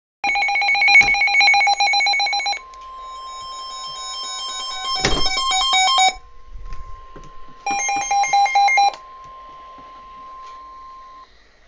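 Emergency alert signalling tones: a harsh, buzzy digital data burst, then a steady single-pitched alarm tone held for about nine seconds, typical of the NOAA Weather Radio warning alarm. Warbling, stepping data tones sound over the first part of the steady tone, a sharp click comes about five seconds in, and a second short buzzy data burst comes near eight seconds.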